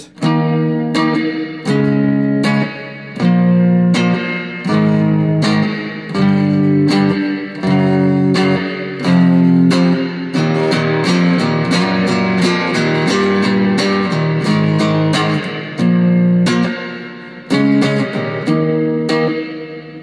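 Three-string cigar box guitar, tuned E-B-E with frets placed at the harmonics for just intonation, strummed through a series of ringing chords. The chords change every second or two, with quicker strumming in the middle.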